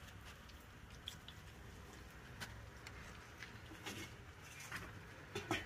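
Ring-shaped lentil fritters (vada) frying in a kadai of hot oil, a faint steady sizzle. A few sharp clinks of a metal skimmer against the pan are scattered through it, the loudest near the end.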